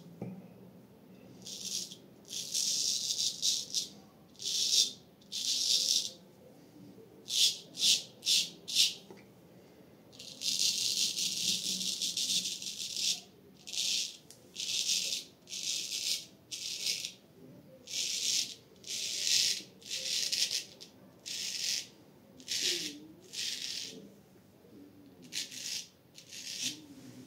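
Ch. Suy Louvain full-hollow-ground straight razor scraping through stubble on a lathered face: a string of short, dry rasping strokes, some in quick runs of three or four, with a longer stretch of unbroken scraping about ten seconds in.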